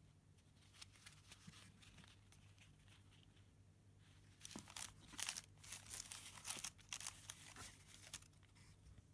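Tissue paper and a paper label band rustling and crinkling as socks are handled in their box. It is faint for the first few seconds, then a quick run of rustles comes about halfway through, over a faint low hum.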